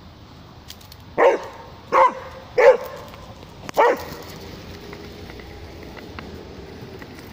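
Beagle barking four times at a cat, short loud barks about a second apart, then stopping.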